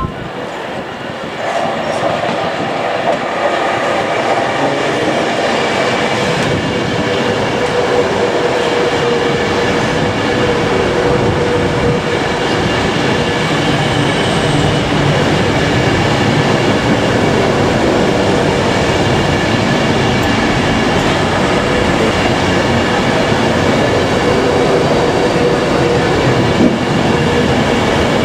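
A train running close by, its noise building over the first couple of seconds and then holding steady, with several steady tones running through it.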